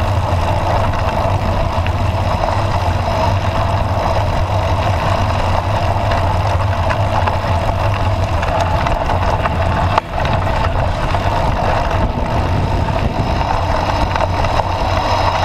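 Steady, muffled riding noise from a bike on the move at night: road rumble and wind with a low hum, broken by a brief dip about ten seconds in.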